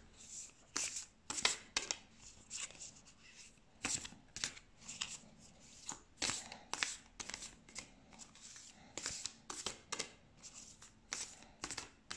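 A 44-card oracle deck being shuffled by hand: cards slapping and sliding against each other in short strokes, about two a second.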